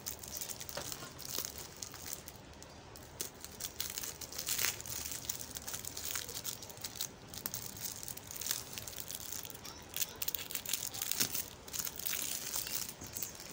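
Clear plastic wrap crinkling and tearing as it is handled and cut away from a cardboard box, in irregular crackles.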